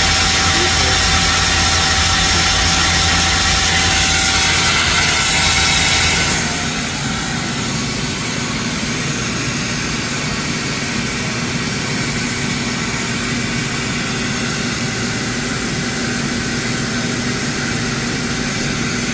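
Mazak Smooth G CNC lathe running: a steady machine noise with a high hiss that falls away about six seconds in, leaving a quieter, steady hum.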